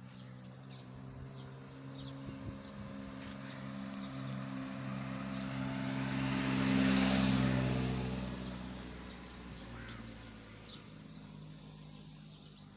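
A motor vehicle drives past: its low engine hum and tyre noise grow louder to a peak about seven seconds in, then fade away. Faint bird chirps sound early on.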